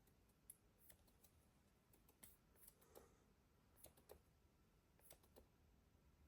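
Near silence, with a dozen or so faint, irregular clicks and taps.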